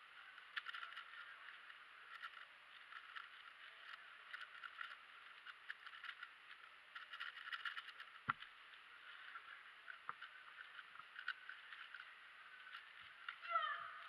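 Quick irregular clicking and clattering of a stickerless MoFangGe QiYi WuQue 4x4 speedcube being turned fast during a solve, in flurries with short pauses. A sharp knock comes about eight seconds in, and a brief squeak that bends in pitch near the end.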